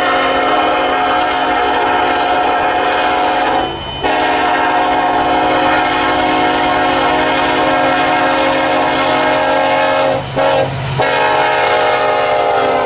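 A Union Pacific freight locomotive's multi-chime air horn blowing. It gives a long blast, a second long blast from about 4 s to about 10 s, a short one, then a final long one that eases off near the end. That is the long-long-short-long pattern sounded for a grade crossing.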